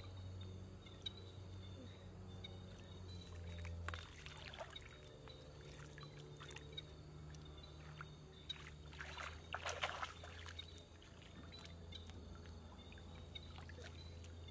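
Faint splashing and trickling of shallow muddy water as hands dip in to pick snails and water dribbles off them, loudest about four seconds in and again around nine to ten seconds in, over a steady low hum.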